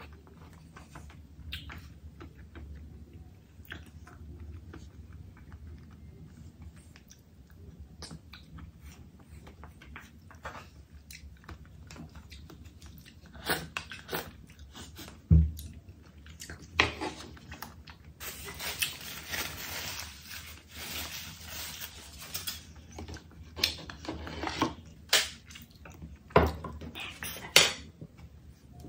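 Close-miked eating sounds: chewing, biting and wet mouth clicks, getting sharper and louder in the second half, with a few seconds of denser crackling past the middle.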